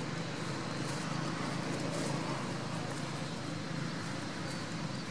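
Steady outdoor background noise with a low hum, and a few faint clicks about a second or two in.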